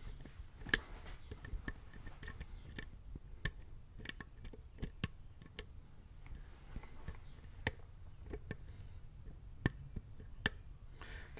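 Small irregular metallic clicks and ticks of a hook pick working the pin stacks inside an Abus Bravus 4000 euro cylinder held under tension, as the picker probes and sets pins one at a time. A few clicks stand out louder among many faint ones.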